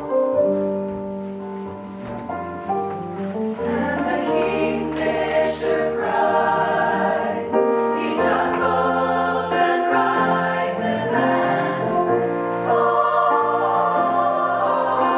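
Choir singing an original musical-theatre song in harmony, holding chords that change every second or so.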